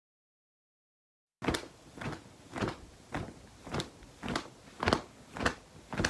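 A recorded foley effect: about nine evenly spaced thuds, roughly two a second, starting abruptly after a second and a half of silence and cut off sharply.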